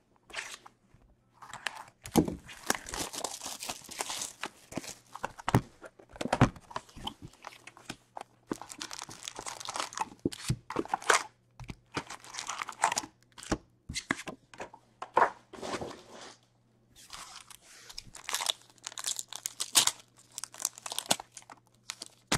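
Plastic wrap and foil card-pack wrappers of an Upper Deck Series One hockey box being torn and crinkled by hand as the box is opened and a pack is ripped open: irregular bursts of crackling and tearing with short pauses between them.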